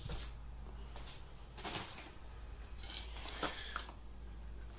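Faint scuffs and rustles of someone walking around the ATV and handling the filming phone, over a steady low hum.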